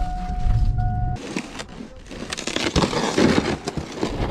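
A pickup truck's steady electronic warning chime sounds over a low engine rumble for about a second. Then an ice-fishing sled is dragged crunching and scraping across snow-covered ice.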